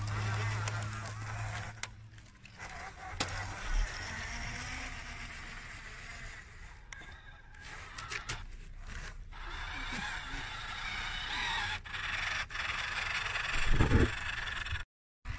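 Tracked Fayee RC military truck crawling over loose dirt, its small electric drive running while the tracks scrape and crunch, with scattered clicks and a louder knock near the end.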